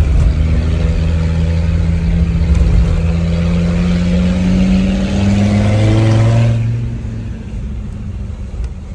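Land Rover Discovery 2's engine pulling under throttle, heard from inside the cabin. Its note rises slowly, drops in pitch about five seconds in, then eases off and goes quieter about a second and a half later.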